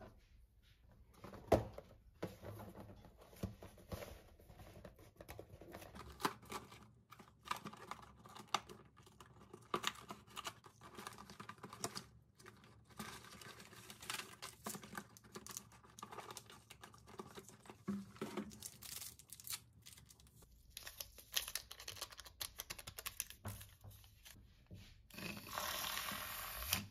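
Kitchen handling noise: a cardboard box and paper sachets rustling, crinkling and tearing, with scattered clicks and taps. Near the end a handheld battery milk frother whirs steadily in a glass cup of coffee, running on freshly changed batteries, and cuts off at the very end.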